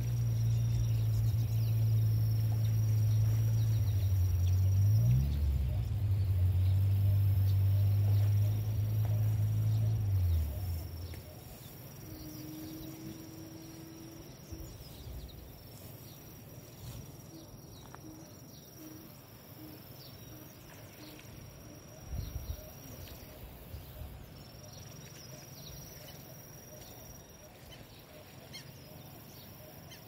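A motor hums steadily and low, its pitch briefly rising and falling back about five seconds in, then winding down and stopping about ten seconds in. Outdoor ambience follows: a thin, high, steady insect buzz that comes and goes, a short run of low bird calls, and a single knock.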